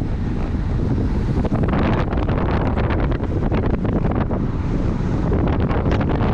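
Strong wind buffeting the microphone: a loud, steady low rumble, with rapid crackling from about two seconds in and again near the end.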